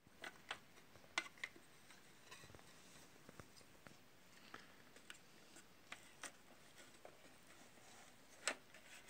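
Scattered small clicks and light scrapes of a screwdriver working on a plastic appliance terminal housing and its wiring, over faint room tone; two sharper clicks stand out, about a second in and near the end.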